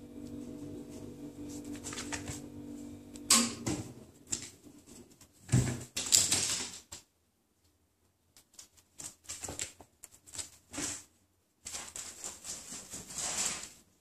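Cats' paws and claws skittering and scrabbling on a laminate floor in several quick clattering bursts as they pounce after a laser dot. A steady low hum runs under the first three seconds.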